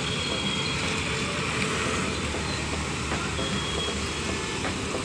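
Steady street traffic noise.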